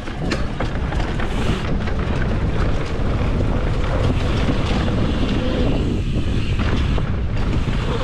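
Wind buffeting the microphone and tyres rumbling over a dirt trail as a mountain bike descends at speed, with scattered short clatters from the bike.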